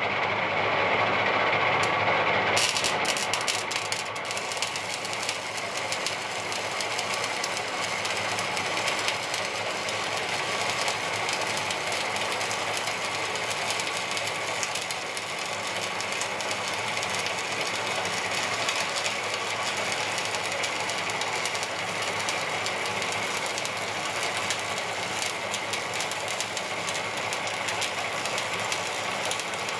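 Electric welding arc crackling steadily as a bead is laid on steel plate, a dense, even crackle that starts about two seconds in.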